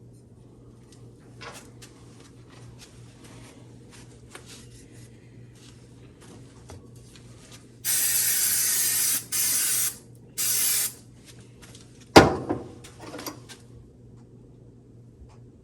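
Light clicks of parts being handled, then three short bursts of spraying hiss, the first the longest, followed by a sharp knock and a smaller one.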